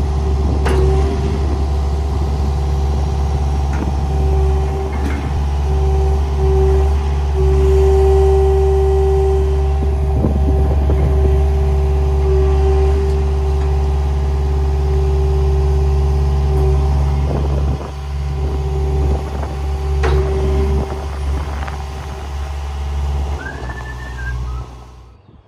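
John Deere 50G compact excavator's diesel engine running steadily under load as the bucket digs a post hole. A steady tone above the engine swells and fades, and there are scattered knocks and scrapes as the bucket works into rocky soil.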